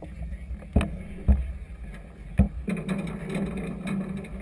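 Steady low rumble of wind and choppy water. Three sharp knocks fall in the first half, and a rougher, noisier stretch follows.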